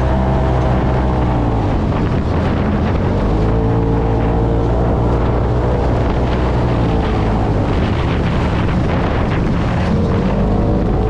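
UTV engine running hard at speed, its note rising and falling with the throttle, under wind buffeting the microphone.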